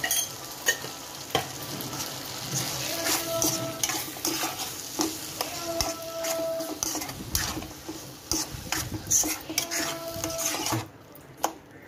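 Mutton fry sizzling in a steel kadai while a steel spoon stirs it, clinking and scraping against the pan, with a few short squeaks; the sizzle and stirring die down near the end.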